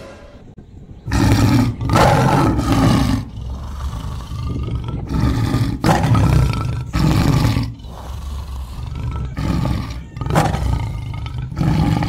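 Recorded tiger roars, played over and over: loud roars, each about a second long, coming about every one to two seconds.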